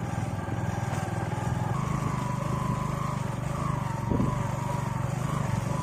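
Small motorcycle engine running steadily at low speed on a rough dirt track, with a short knock about four seconds in.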